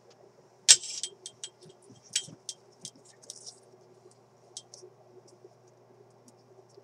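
Sharp clicks and ticks of small hand tools and wire leads being handled at a radio chassis during soldering work. A loud click comes just under a second in, then a scatter of lighter ticks that thin out. A faint steady hum sits underneath.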